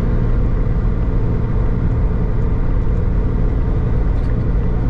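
An old Nissan Patrol 4WD cruising at highway speed, heard from inside the cabin as a steady drone of engine and road rumble.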